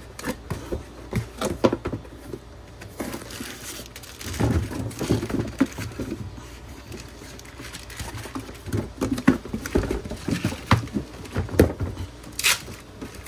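Cardboard box flaps, foam packing and plastic wrap handled as an amplifier is unpacked: irregular rustling, scraping and light knocks, with a brighter crinkle near the end.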